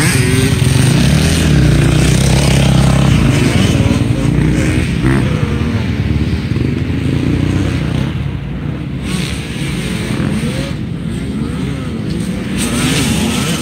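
Dirt bike engine on a motocross track, its pitch rising and falling as the rider opens and closes the throttle.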